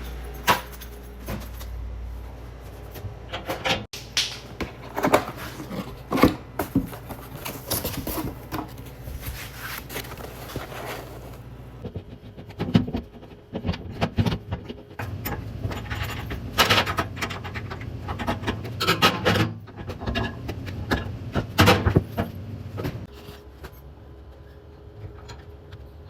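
Irregular knocks and clicks with short scraping sounds between them, over a low steady hum.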